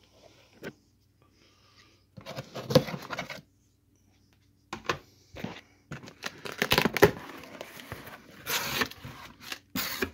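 Cardboard shipping box being torn open, with packing tape ripping and the cardboard flaps rustling and scraping. It comes in bursts: about two seconds in, briefly about five seconds in, then almost without a break from about six seconds on.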